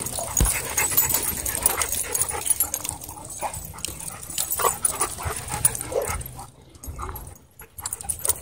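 Several dogs play-fighting at close range: scattered brief yips and whines over scuffling and rustling, with knocks as the dogs bump against the microphone.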